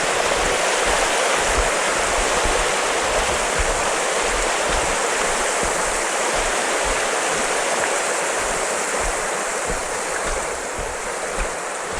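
Small river's water rushing over stones, a steady, even hiss.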